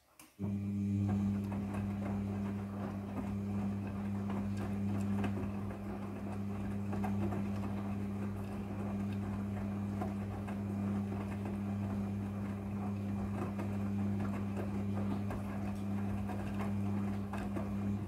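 Midea front-loading washing machine turning its drum in a wash cycle: the motor starts about half a second in and runs with a steady low hum while the wet laundry tumbles and splashes, then stops abruptly at the end.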